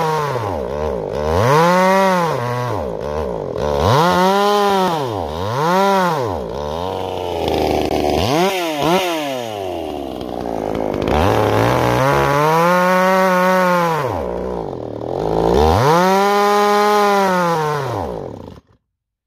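Two-stroke chainsaw cutting through a log, its engine revving up and then sagging in pitch again and again as it bogs down under load, which the material puts down to a possible carburetor problem. The sound cuts off suddenly near the end.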